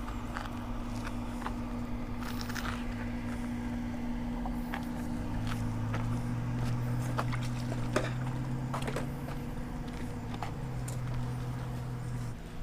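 A steady low motor hum that steps up in pitch about five seconds in and drops back near the end, with scattered light clicks and footsteps over it.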